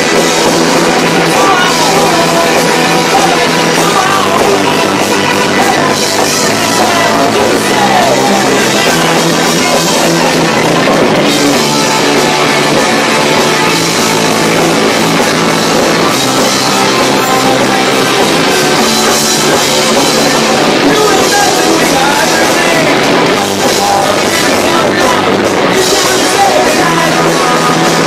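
Live rock band playing loud, with electric guitars, bass and drums. The camcorder's microphone is overloaded by the volume, so the whole sound is distorted.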